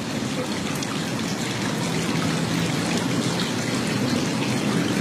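Steady noise like falling rain.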